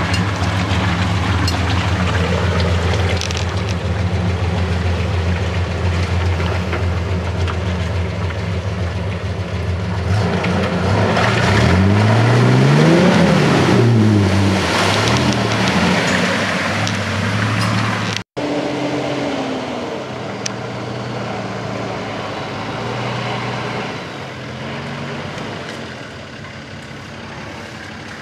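Toyota 80 Series Landcruiser's engine pulling through a mud bog, running steadily, then revving up and back down about halfway in, its loudest moment. After a sudden cut, another four-wheel drive's engine runs more quietly.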